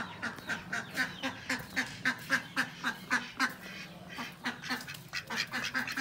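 Duck quacking in a rapid, steady run, about four quacks a second.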